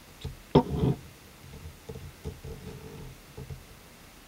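Sharp metallic click about half a second in, with a smaller one just after, as the AR-15 bolt is handled and put back into its bolt carrier. Quieter scattered handling sounds follow.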